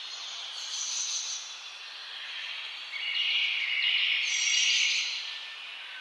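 A dense chorus of many small birds chirping and singing together, swelling louder about halfway through.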